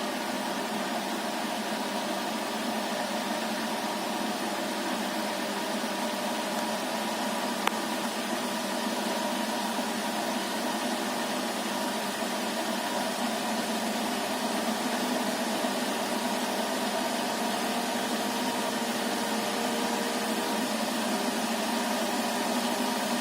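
Siemens iQ500 varioPerfect washing machine with an iQdrive motor running an interim spin on an unbalanced load: a steady machine hum with a hissing drone that grows slightly louder in the second half. There is a single sharp click about eight seconds in.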